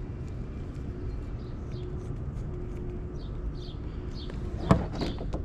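A small bird chirping repeatedly, in short high falling notes a few times a second, over a steady low background rumble. A single sharp click comes near the end.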